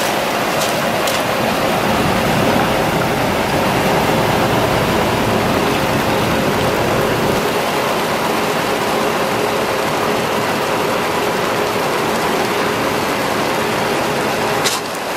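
Water truck's PTO-driven pump spray system running: water rushes and splashes from the rear spray bar onto gravel and jets from a spray head on top of the tank. A steady hum from the pump and engine lies beneath it, and the sound dips briefly near the end.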